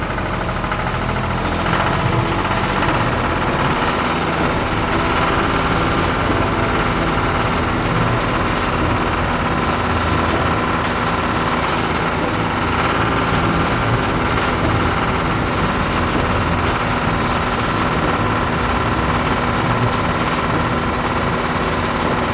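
Tractor engine running steadily, with a fast, even chugging beat and no change in speed.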